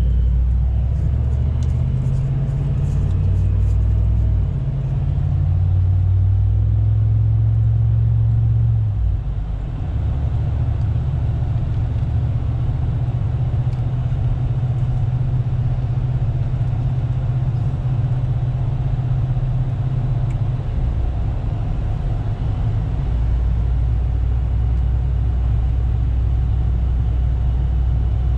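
Cadillac DeVille's Northstar V8 breathing through a Thrush aftermarket exhaust with the resonator deleted, heard from inside the cabin as a low drone while cruising. Its pitch shifts several times in the first nine seconds, then holds steadier.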